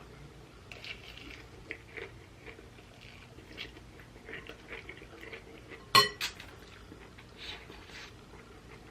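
Cutlery clinking against a plate while eating, with small scattered clicks and one loud, sharp clink about six seconds in, followed by a smaller one just after.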